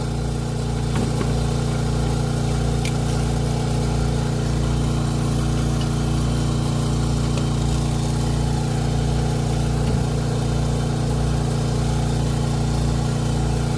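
A motor running steadily with a low, even hum; a couple of faint clicks over it.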